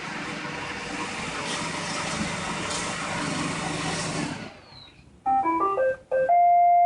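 iRobot Roomba 870 robot vacuum running with its vacuum motor and brushes going, then shutting down about four and a half seconds in as it settles on its charging dock. About a second later it plays a short electronic tune: a quick run of stepped beeps followed by one long held note, the signal that it has docked and finished cleaning.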